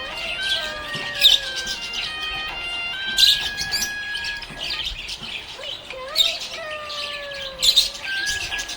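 Budgerigars chirping and warbling in quick clusters of high chirps, loudest about a second in, about three seconds in and near the end, over background music with a held, stepping melody.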